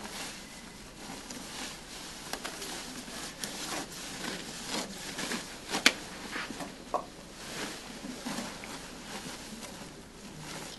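Crinkly rustling of a Tyvek coverall and the scuffing of rubber boots as they are pulled on, with scattered small clicks and rubs. One sharp click just past halfway is the loudest sound.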